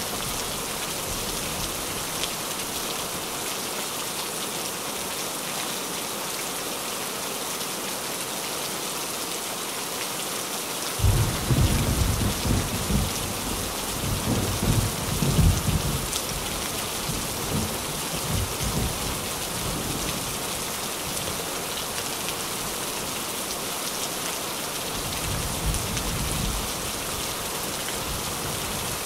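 Steady rain falling on a tin roof. About eleven seconds in, a low rumble of thunder sets in suddenly, loudest over the next few seconds before fading, with a weaker rumble a few seconds before the end.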